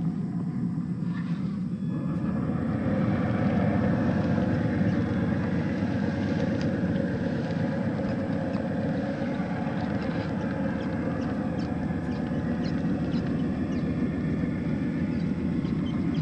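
Traxxas TRX-4 scale RC crawler's stock brushed electric motor and geared drivetrain whining steadily as it drives through dry grass, with scattered light crackles through the middle and latter part. It gets a little louder about two to three seconds in.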